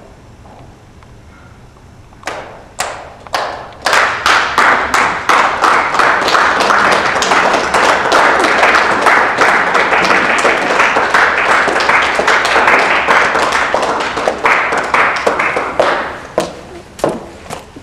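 Audience applause: a few scattered claps about two seconds in, swelling into steady clapping for about twelve seconds, then thinning back to scattered claps near the end.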